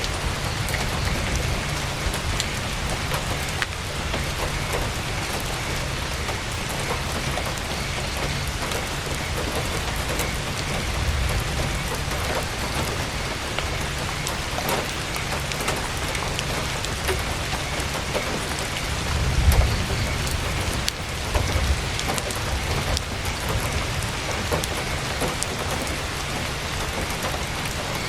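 Heavy rain drumming steadily on tent canvas, full of small drop clicks, with a low rumble swelling briefly about two-thirds of the way through.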